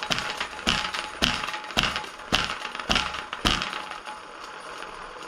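Wet Panda paint roller being spun on its frame by hand-swipes to fling out the wash water: about seven quick whirring strokes, a little under two a second, then it spins on by itself with a fainter steady whir.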